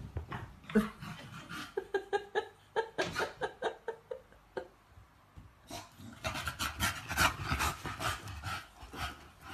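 A dog panting and snuffling in quick short bursts, with a few brief whines about two to three and a half seconds in.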